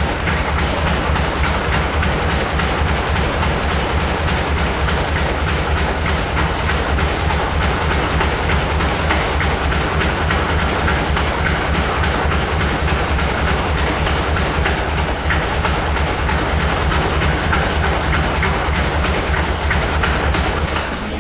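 A speed bag being punched in a fast, unbroken rhythm, rattling against its overhead rebound platform.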